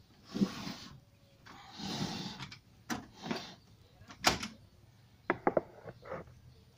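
Handling noise on the plastic casing of an Aiwa mini hi-fi system: scattered sharp clicks and knocks, the sharpest about four seconds in and a quick run of clicks a little after, with a brief rustling scrape around two seconds in.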